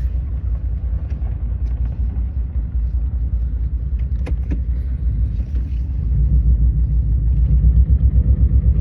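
Subaru Legacy flat-four engine running rough with an uneven, pulsing chug from a misfire on cylinder 1. It gets louder about six seconds in.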